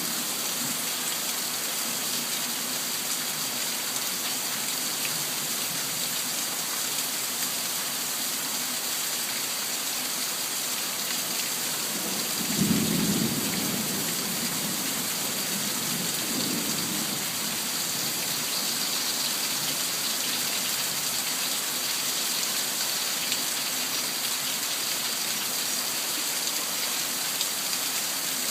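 Steady rain falling throughout. About halfway through a clap of thunder breaks in suddenly and rumbles for a couple of seconds, followed a few seconds later by a fainter rumble.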